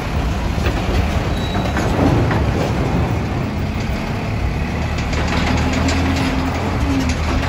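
Car-carrier truck's diesel engine running with a steady low drone as the truck drives slowly up the steel ramp onto a ferry, with light clicks and rattles in the second half.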